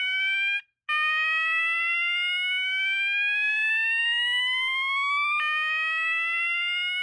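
System Sensor MASS SS-12 12-volt fire alarm horn sounding, pretty loud: a tone that sweeps slowly upward over several seconds, stops briefly under a second in, then rises again and drops back to begin another rise about five seconds in.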